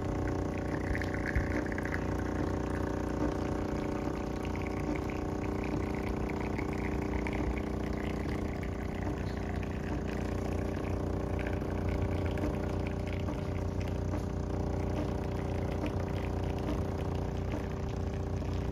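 Jura A1 espresso machine's pump running with a steady hum while it brews an espresso, coffee trickling from the spout into a porcelain cup.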